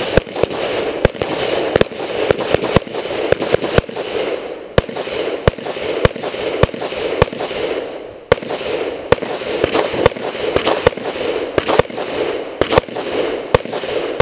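A firearm fired over and over at a steady pace, more than twenty sharp shots spaced about half a second to a second apart.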